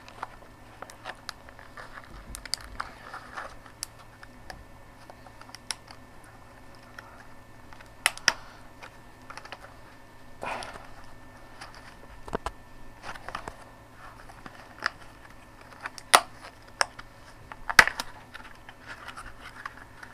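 Plastic blister packaging of a RAM stick being handled and pulled at: irregular crinkling with scattered sharp clicks and snaps, a few louder ones in the second half.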